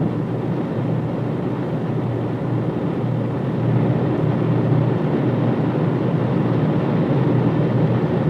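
Atlas ICBM's liquid-fuelled rocket engines roaring at ignition and liftoff from the launch stand: a deep, steady rush of noise that grows a little louder about halfway through.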